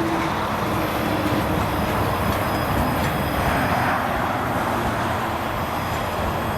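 A train rolling past with a steady rush of wheel and rail noise.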